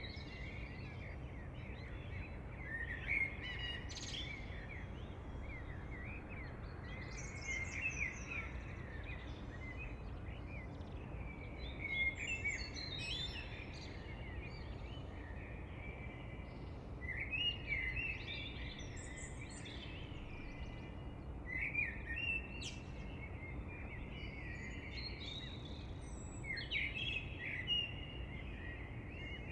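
Wild birds singing, with quick chirps and trills coming in bursts every few seconds, over a steady low background hiss.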